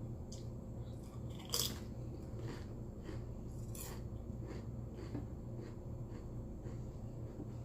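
Close-miked eating: chewing with short, sharp crunches of crisp snack food, about one a second, the loudest a little over one and a half seconds in.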